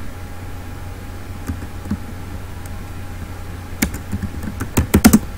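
Keystrokes on a computer keyboard typing a word: a few separate key presses, then a quick run of louder keystrokes near the end, over a steady low electrical hum.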